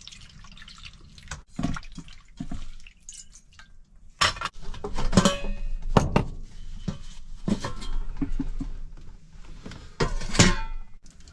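Kitchen handling sounds: knocks and clinks of cookware and utensils being set down and moved, with some dripping and splashing of water. There are louder clusters of clatter about four seconds in and again near the end.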